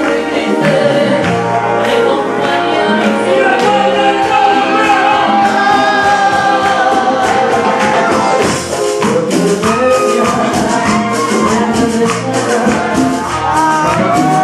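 Band music: a singer over drums and percussion, with a steady beat.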